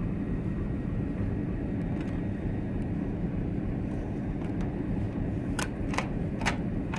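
Steady low hum of the ship's machinery. Near the end, a card-operated cabin door lock clicks three times in quick succession as the key card is run through it and the lock is worked.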